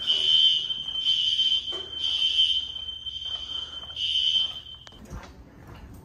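Fire alarm sounding a steady high-pitched tone that swells and dips a little in loudness, then cuts off suddenly about five seconds in.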